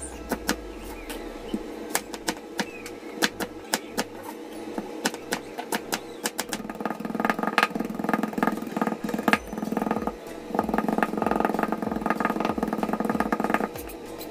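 Kitchen knife chopping on a cutting board. First comes a series of separate cuts through onion and garlic, then from about halfway in a fast, continuous run of chops as the garlic is minced.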